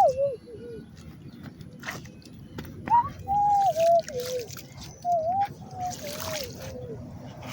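A person whistling a tune: a run of short, bending notes, with a few knocks in between.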